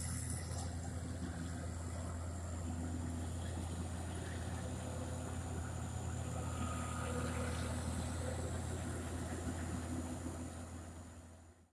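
Farm machinery engine running with a steady low drone and a faint high whine, fading out near the end.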